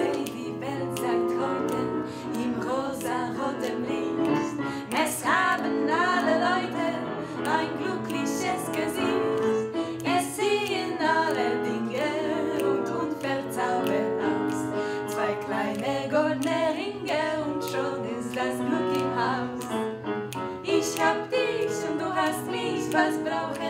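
Music: a song sung by women's voices with instrumental accompaniment.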